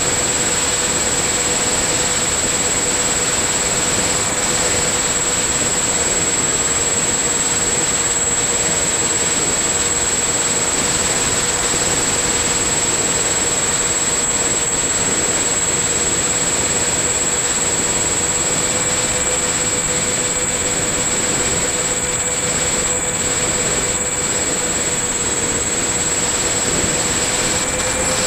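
Electric motor and propeller of a LiPo-powered radio-controlled model aircraft running steadily in flight, a constant whine with slight shifts in pitch, over a steady rush of wind across the onboard camera's microphone.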